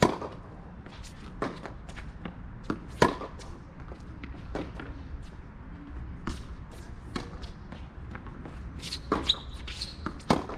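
Tennis balls struck by rackets in a baseline backhand rally: sharp pops about every one and a half seconds, alternating between the near player's louder hits and the far player's fainter ones, the loudest about three seconds in. Shoe scuffs and footsteps on the hard court fill the gaps between shots.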